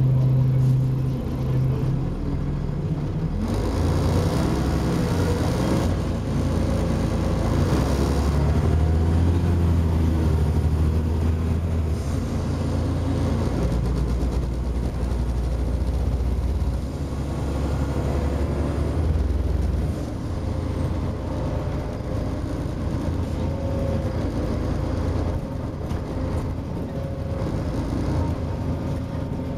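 Volvo Olympian double-decker bus's diesel engine and drivetrain heard from inside the saloon as the bus drives along. The low engine note shifts in steps several times as the bus moves through its gears, over steady road and body rumble.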